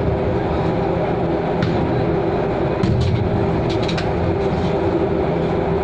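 Steady drone of a ship's machinery. A few sharp knocks of a basketball bouncing on the deck cut through it, most of them about three to four seconds in.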